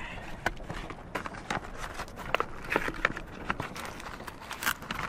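Irregular sharp cracks and pops of New Year's Eve firecrackers going off around the area, several a second and of varying loudness, with a few louder bangs about midway and near the end.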